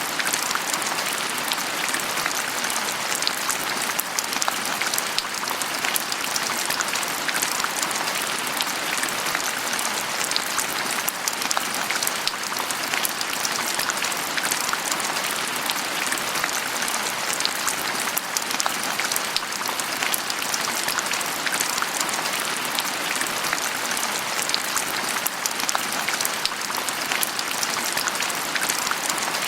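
Steady rain falling, a dense even hiss of many small drops pattering on a surface.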